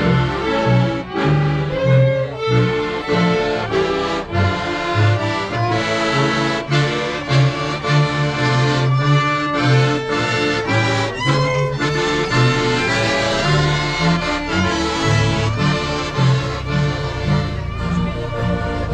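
Accordion-led instrumental music, a lively passage of a song with a steady rhythmic bass line beneath.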